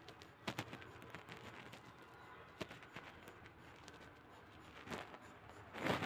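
Coloured pencil tip scratching and tapping on paper in short, scattered strokes, with a louder scrape near the end.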